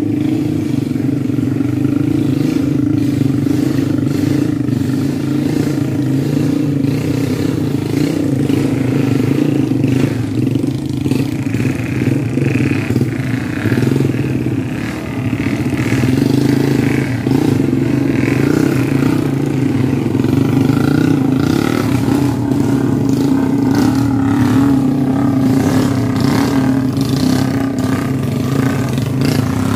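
Motorcycle engine running steadily, with a dip in level about halfway through.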